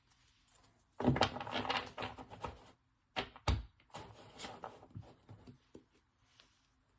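Trading cards being handled and stacked on a table: quick clicking and rustling, with two sharp knocks against the table about three and a half seconds in.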